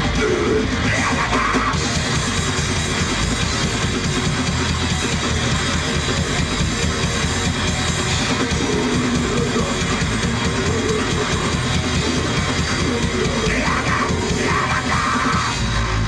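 Heavy rock band playing live: electric guitar and a drum kit going continuously at a steady, loud level.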